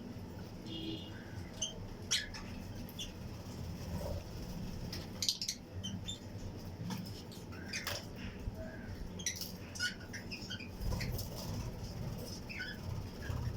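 A colony of Fischer's and lutino lovebirds chirping: many short, sharp, high chirps and squeaks, scattered and overlapping, with no steady rhythm.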